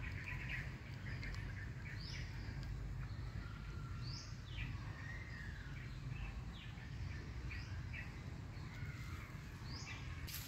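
Birds calling: short chirps that slide down in pitch, repeated about once a second, over a steady low background rumble.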